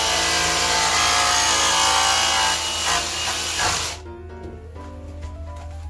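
Ryobi cordless power saw cutting through the side of a plastic milk crate, running for about four seconds and then stopping abruptly. Background music plays underneath and carries on after the saw stops.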